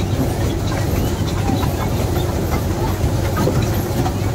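Amusement-park toy train running along its track: a steady low rumble with faint, irregular clicks of the wheels on the rails.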